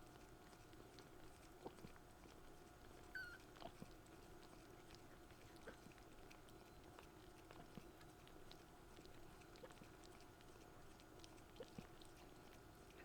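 Very faint scattered clicks and rustles from young kittens stirring in a cardboard box, with one brief high squeak about three seconds in, over a steady low hum.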